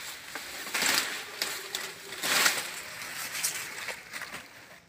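Pumpkin vines and leaves rustling as pumpkins are pulled and handled, with two louder swishes, about a second in and just after two seconds.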